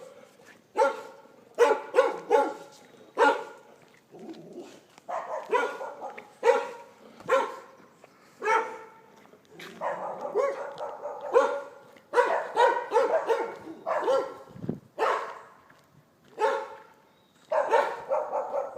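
A dog barking over and over, single barks and quick runs of barks at an irregular pace, busiest in the middle.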